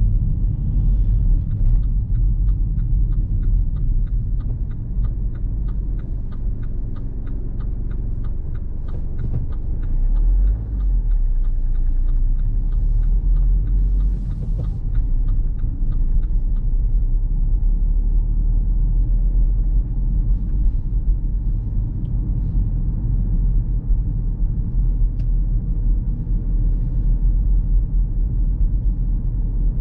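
Car driving: a steady low rumble of engine and road noise. A regular ticking, about three a second, runs through the first half and then stops.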